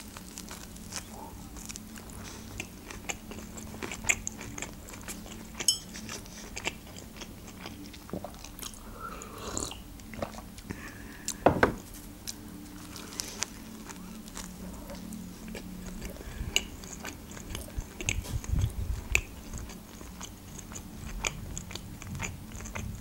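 Close-miked chewing of pide bread crust: steady mastication with scattered crisp crunches and wet mouth clicks, one louder crunch about halfway through.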